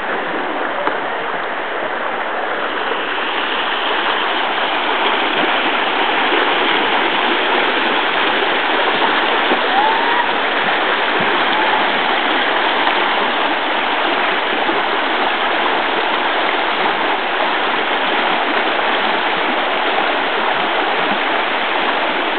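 A shallow, stony river rapid rushing steadily, growing a little louder a few seconds in.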